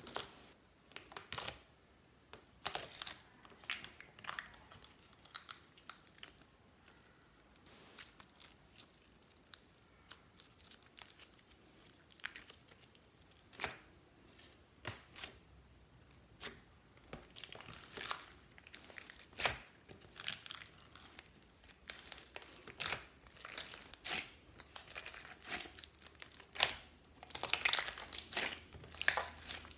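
Clear slime being squished and stretched by hand, giving irregular sticky crackles and pops that come thicker toward the end.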